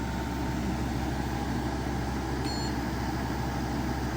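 EcoFlow Wave portable air conditioner running steadily in cooling mode, its compressor on and fan at full speed, giving a constant hum and fan noise. A short electronic beep about two and a half seconds in.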